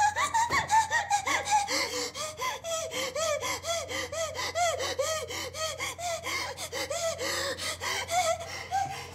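A woman hyperventilating while sobbing: a rapid run of short, voiced gasps, about three a second. It is an attack of hyperventilation brought on by acute distress.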